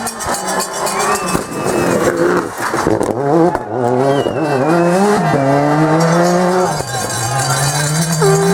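Rally car engine driven hard, its pitch climbing and then dropping sharply several times as it shifts up through the gears.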